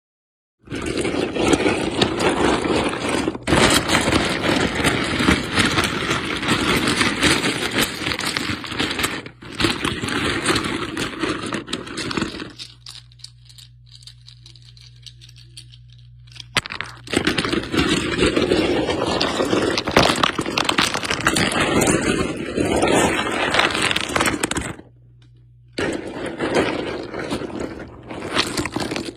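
Dense crackling and scraping noise made up of many small sharp clicks. It pauses for a few seconds in the middle and again briefly near the end, leaving a low steady hum.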